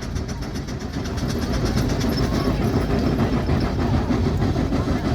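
Steam roller engine working under way, its exhaust chuffing in a rapid, even beat.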